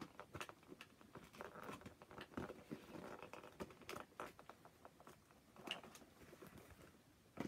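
Faint rustling and small irregular clicks of hands handling toy packaging, cardboard and plastic being worked to free the parts inside.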